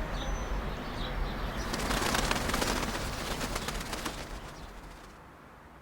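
Birds chirping over a low outdoor rumble, with dove-like cooing. A louder crackly rush of noise swells in the middle, then the whole ambience fades out.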